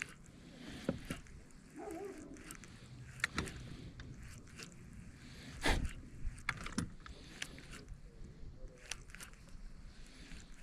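Scattered light clicks and knocks of handling noise, with one louder knock a little past halfway.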